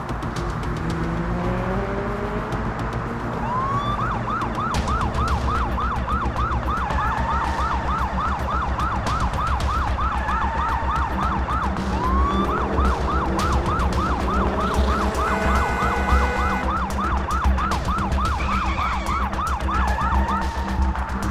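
A fast yelping emergency siren, rapid rising sweeps about four a second, in two runs of several seconds each, over music with a steady low pulsing beat.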